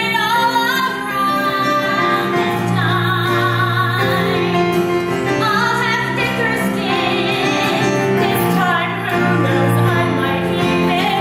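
A woman singing a musical-theatre song, her held notes wavering with vibrato, accompanied by keyboard.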